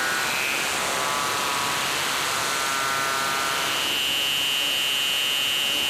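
Live performance soundscape: a steady wash of noise with sustained high tones layered over it, shifting in pitch early on; a bright, piercing high tone comes in about three and a half seconds in and holds.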